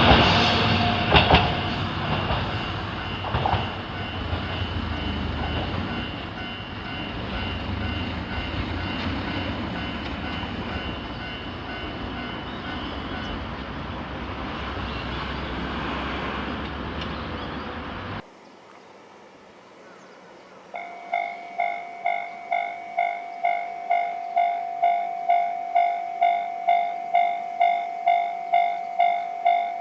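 A train runs past a railway level crossing, its noise slowly fading, then cuts off suddenly. After a couple of seconds of low background, a Japanese level-crossing warning bell starts ringing: an even, repeated ding about twice a second that grows louder.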